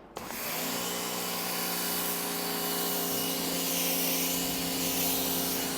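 Bosch Aquatak 130 electric pressure washer kicking on when the trigger is pulled about a fraction of a second in, then running steadily: motor hum under the loud hiss of the foam lance spraying.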